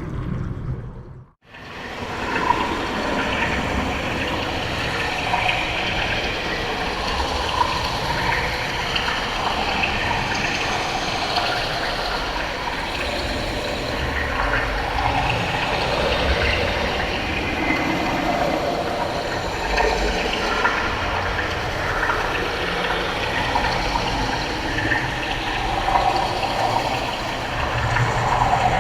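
Underwater ocean ambience: a steady low rumbling wash of water with irregular gurgles. About a second in, a preceding underwater track fades out and the ocean ambience fades back up.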